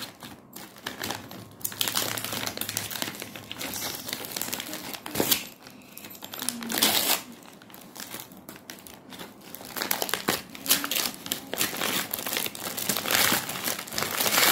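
Gift-wrapping paper crinkling and rustling in uneven spells as hands handle a wrapped present and pull it open.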